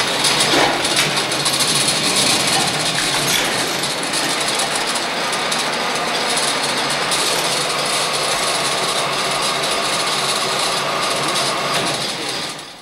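Spinning mule running: a steady clatter and whir from its spindles and moving carriage as it twists yarn. The noise stops suddenly just before the end.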